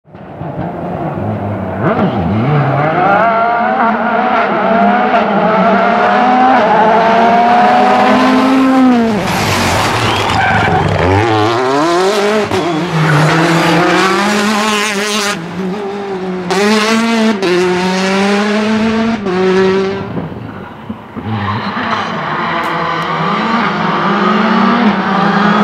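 Rally cars driven hard on a stage, heard one after another: the engine note climbs high, drops away at gear changes and braking for corners, then climbs again as each car accelerates.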